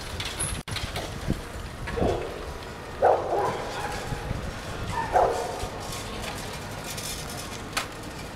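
Two short, loud animal calls about two seconds apart, over steady background noise.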